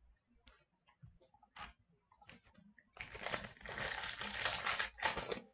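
A few faint taps of cards being handled, then, about three seconds in, the foil wrapper of a 2015-16 O-Pee-Chee Platinum hockey card pack crinkling and tearing as it is ripped open, for about two and a half seconds.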